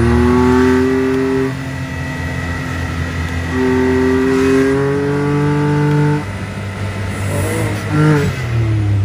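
Can-Am Maverick X3's turbocharged three-cylinder engine, breathing through a 2.5-inch electronic dump-valve exhaust with a cat-delete mid pipe, revved in held blips: one rising rev that drops off about a second and a half in, a longer one from about three and a half to six seconds in, and a short blip near the end, settling back between them.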